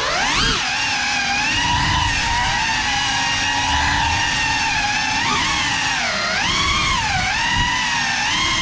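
GEPRC Cinelog 35 cinewhoop FPV drone on a 6S battery: its brushless motors and ducted propellers whining. The pitch jumps up sharply just after the start, then dips and surges with the throttle in the second half.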